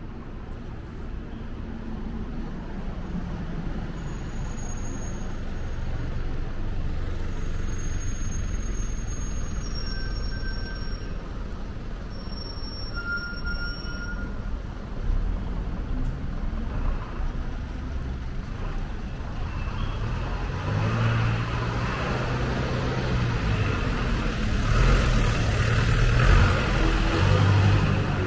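Road traffic on a city street: cars and heavier vehicles passing in a continuous rumble, growing louder in the last third. A few faint high-pitched tones sound in the first half.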